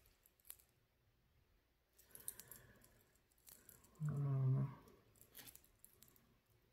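Small scattered clicks and taps of metal rings knocking against each other as they are handled and slid onto stacked fingers. About four seconds in there is a short hum from a person's voice, the loudest sound.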